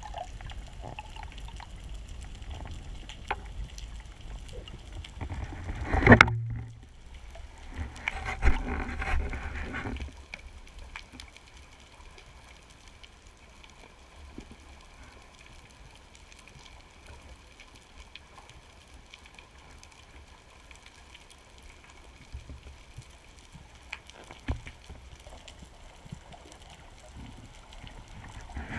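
Muffled underwater noise heard through a waterproof camera housing during a freediving descent. A sharp loud knock comes about six seconds in, and a louder rushing noise follows for a couple of seconds. After that the noise is quieter and steady, with a few faint clicks.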